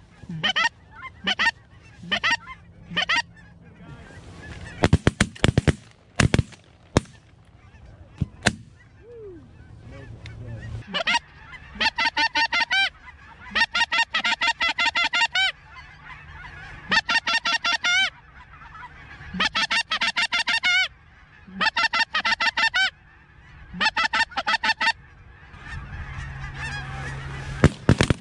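Geese honking: scattered calls at first, then from about ten seconds in, fast runs of honks lasting a second or two each, broken by short pauses.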